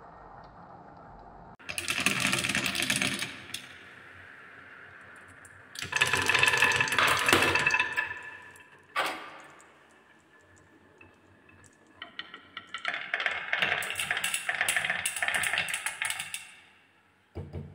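Balls rolling and clattering down a wooden marble run, heard as three spells of dense, rapid clicking with quieter rolling between them.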